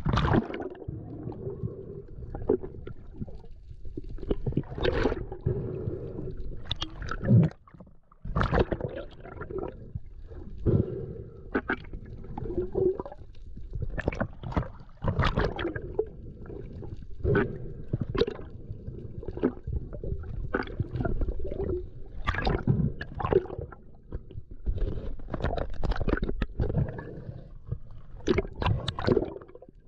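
Water sloshing and gurgling around a diver's camera, muffled, with a low rumble and irregular knocks and scrapes about once a second.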